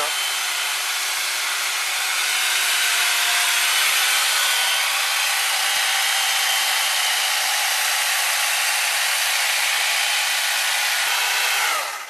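Corded electric chainsaw running steadily as it cuts into a block of ice, a constant hissing whine that cuts off suddenly near the end.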